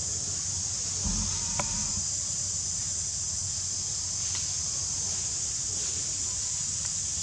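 Steady, high-pitched drone of forest insects, with a brief low bump about a second in.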